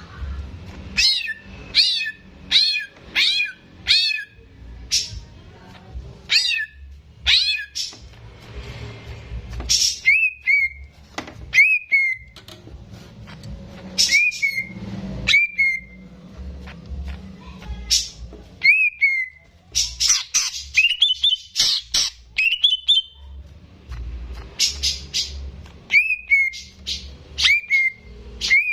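Green leafbird (cucak ijo) singing in a rapid run of loud, sharp whistled notes, quick up-and-down sweeps mixed with repeated down-slurred whistles.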